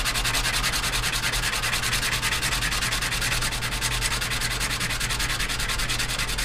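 Hand sanding with a sandpaper disc: quick, even back-and-forth strokes rasping over a small metal hydraulic cylinder part to smooth its rough edges.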